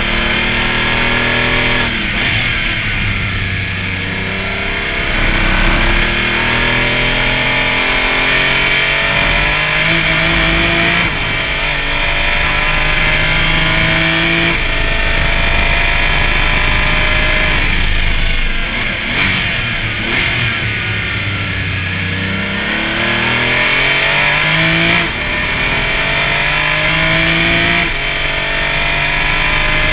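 Porsche Cayman race car's engine at racing speed, repeatedly climbing in pitch and dropping back at each gear change, with stretches of falling pitch where it brakes and downshifts for corners. A steady rushing noise of wind and tyres runs underneath.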